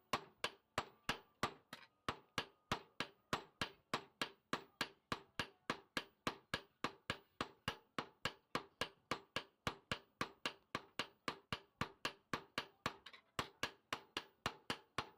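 Blacksmith's hammer beating out a parang (machete) blade on an anvil to widen it: a fast, even run of strikes, about three or four a second, each with a short metallic ring. The rhythm breaks briefly about two seconds in and again about thirteen seconds in.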